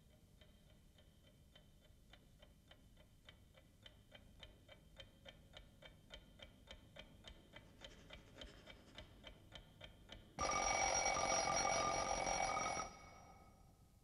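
Mechanical alarm clock ticking steadily, about three ticks a second, the ticks starting faint and growing louder. About ten seconds in, its bell rings loudly for about two and a half seconds, then stops.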